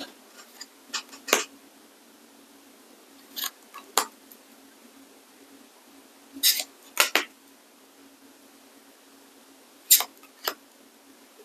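Small tarot cards being flipped and set down one at a time: short, sharp card snaps and taps, coming in small clusters every few seconds.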